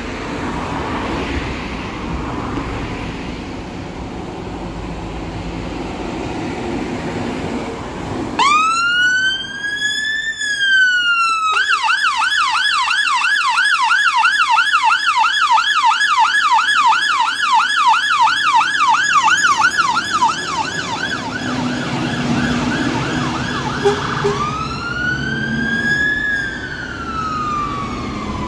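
Fire engine's electronic siren, switched on about eight seconds in. It gives one slow rising-and-falling wail, then a fast yelp for about nine seconds, then fades into low engine rumble as the truck pulls away, and a second slow wail sounds near the end. Before the siren there is only low road-traffic noise.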